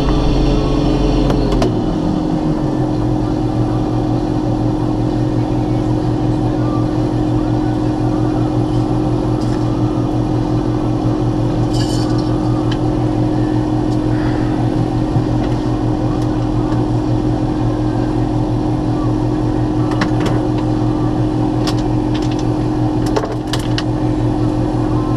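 Combine harvester engine and threshing machinery running steadily while shelling corn. In the first two seconds the engine's pitch drops and then holds steady, with a few short sharp clicks near the end.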